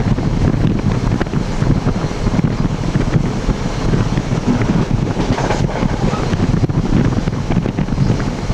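Wind from the open window buffeting the camcorder microphone in the vestibule between cars of a moving NJ Transit commuter train, over the steady running rumble of the train.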